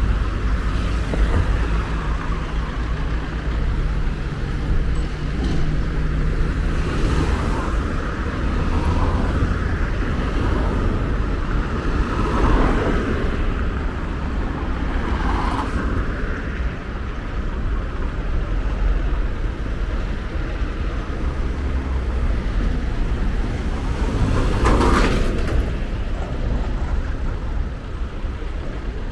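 Street traffic on a city boulevard: a steady low rumble of passing cars, with a few vehicles going by closer and louder, the loudest about three-quarters of the way through.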